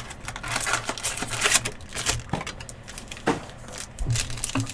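Sports trading card packs being handled: wrapper crinkling and cards clicking and sliding against each other in quick, irregular rustles.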